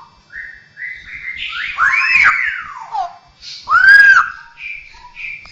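Straw-headed bulbul (cucak rowo) singing: a run of short whistled notes, then two loud, liquid phrases that arch up and down in pitch about two and four seconds in, followed by shorter notes. The voice-like quality fits the bird's mimicked fill-in sounds.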